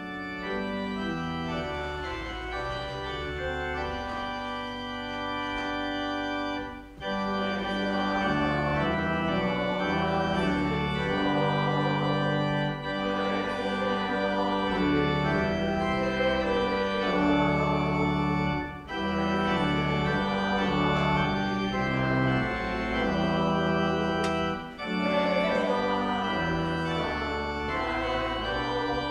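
Church pipe organ playing slow held chords in phrases, starting abruptly, with brief breaks between phrases about seven, nineteen and twenty-five seconds in.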